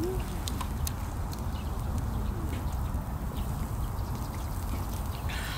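Outdoor ambience: a steady low rumble with scattered faint clicks and crackles, and a brief rustle near the end.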